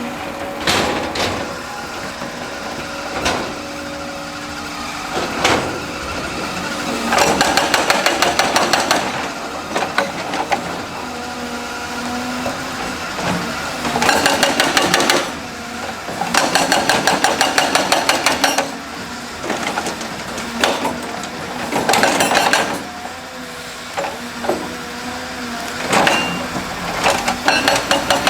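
Heavy construction machinery running, with repeated bursts of rapid hammering clatter, each lasting a second or two, over the steady engine noise.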